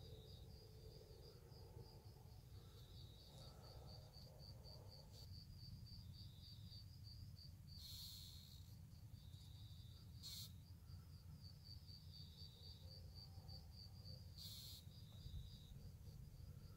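Crickets chirping at night: a quiet, steady, fast high-pitched pulsing, over a low rumble, with three short bursts of hissy noise about halfway through and near the end.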